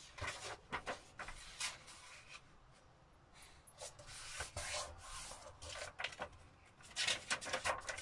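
Sheets of paper rustling and scuffing as they are lifted from a stack, folded and pressed flat by hand, in short irregular rustles with a busier cluster near the end.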